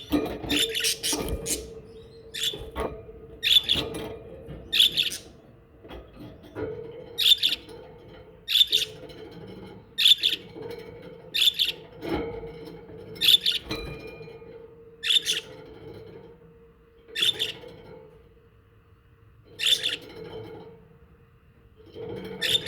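Budgerigars chirping: short, sharp, high calls repeated roughly every second or so, over a steady low hum.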